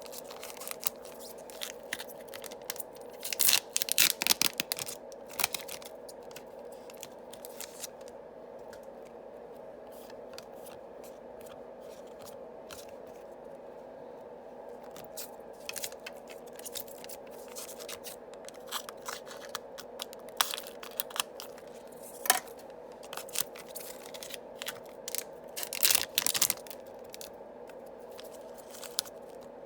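Yu-Gi-Oh booster packs being torn open and their cards handled. Two bursts of crinkly tearing come about four seconds in and again near the end, with scattered light clicks and scrapes of cards between them.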